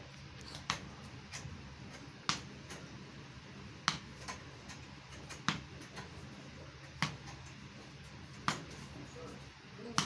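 A cricket bat striking a ball over and over: sharp knocks about every second and a half, six in all.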